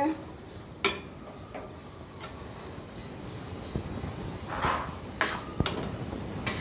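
A spatula stirring thick chickpea batter in a kadhai: a few sharp knocks against the pan and a short scrape about halfway through. A steady high-pitched tone runs underneath.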